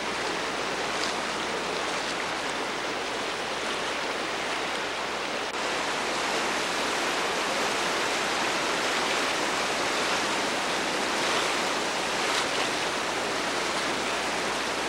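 Whitewater of a river rapid rushing steadily.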